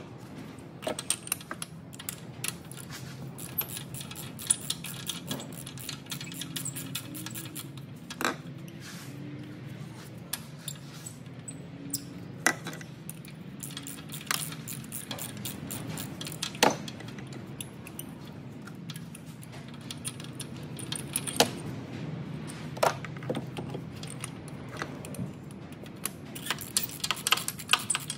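Socket wrench and 5/8 spark plug socket clicking and clinking as spark plugs are unscrewed from a VW 2.5-litre five-cylinder engine: scattered sharp metallic clicks, with a dense run of rapid clicks near the end, over a low steady hum.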